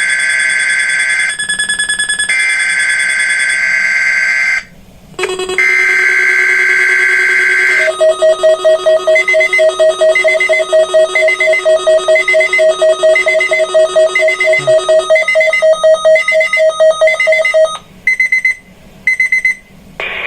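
Weather radio alert test signal. Repeated bursts of warbling data tones lead into a fast, even electronic alarm beeping for about ten seconds, followed by two short data bursts near the end.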